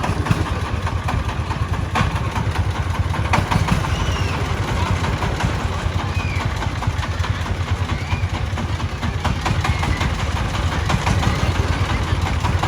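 Single-cylinder diesel engine of a công nông farm truck chugging steadily, with a fast even pulse.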